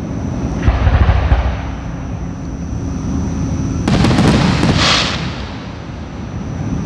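Aerial firework shells bursting at a distance: a deep boom about a second in, then a cluster of sharp reports about four seconds in followed by a short hiss.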